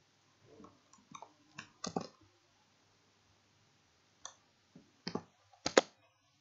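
Short clicks of a computer keyboard and mouse as a formula is edited: a cluster of about six in the first two seconds, then a pause, then about five more from about four seconds in, the last ones the sharpest.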